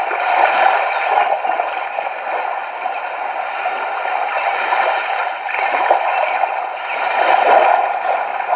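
Steady rushing, gurgling water, like a sea or stream ambience laid under the scene, with no low rumble beneath it.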